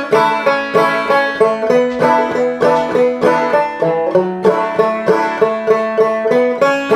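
Open-back banjo played clawhammer style in standard open G tuning: a steady, even rhythm of struck notes and brushed strums, ringing out with no voice.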